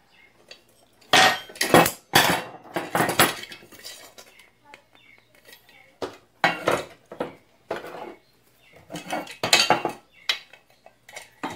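Metal clattering and scraping from an aluminium pressure-cooker lid and its handle being handled and worked on, in irregular bursts with short pauses between.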